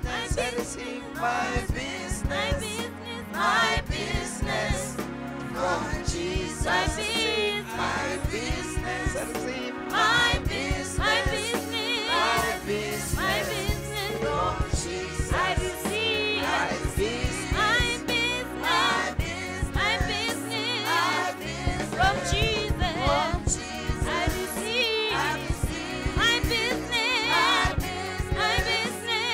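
Gospel music: voices singing over a bass line that moves in steps and a regular beat.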